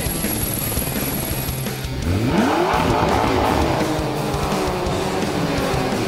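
Vehicle engine sound effect over background music, revving up in pitch about two seconds in and running on to the end.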